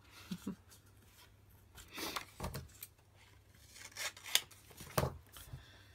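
Paper being handled on a desk: patterned paper pressed and rubbed flat onto card and slid into place. There are short rustles and a few light taps, with louder ones about two seconds in and about five seconds in.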